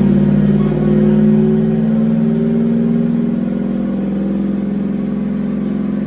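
2002 Ford SVT Lightning's supercharged 5.4-litre V8 with long-tube headers, running under load on a chassis dyno. Its pitch creeps up over the first few seconds, then eases and holds.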